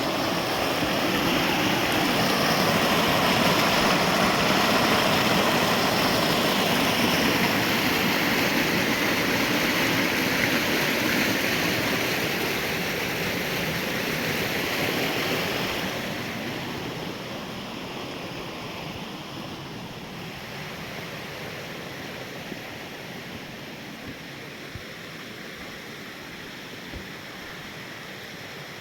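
Rushing water, a steady even roar, loud for about the first half and then fading to a lower level.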